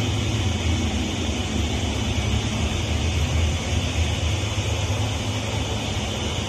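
Steady mechanical drone of running machinery: a low hum with a constant hiss over it.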